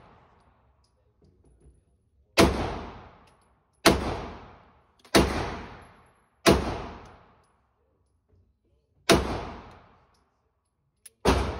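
Six gunshots fired one at a time. Each has a long fading tail. The first four come about 1.3 seconds apart starting about two seconds in, then there is a pause before two more near the end.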